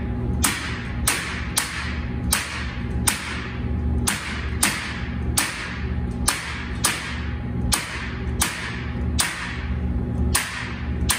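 Corded electric staple gun firing staples through crushed velvet into a sound panel's frame: evenly spaced sharp snaps, about fifteen of them, a little more than one a second.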